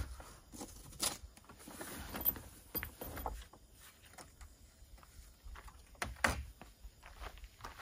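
Yescom vehicle awning being folded and rolled up on a roof rack: fabric rustling, with scattered clicks and knocks from the aluminium poles and hinge joints. The loudest knock comes about six seconds in.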